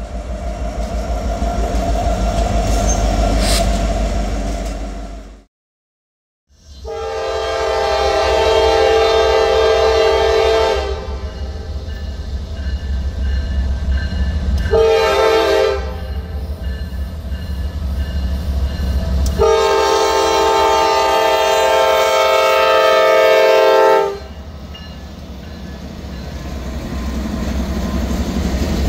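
Diesel freight locomotives rumbling past close by, then, after a short break, a locomotive's multi-chime air horn sounding a long blast, a short blast and another long blast for a road crossing over the engines' rumble. Near the end the locomotives and cars roll past with rising rumble and wheel clatter.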